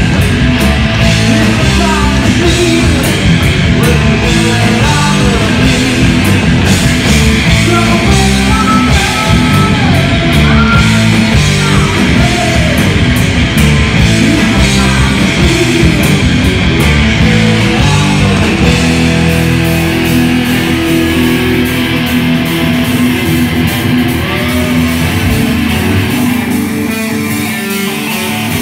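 Heavy metal band playing live: electric guitars, bass and drums with a singer, recorded loud from the audience. Towards the end the singing stops and the bass and drums drop back, leaving mainly guitar.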